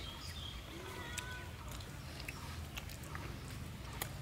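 Close chewing and lip-smacking of a person eating a mouthful of rice and chicken by hand, with scattered small wet clicks throughout.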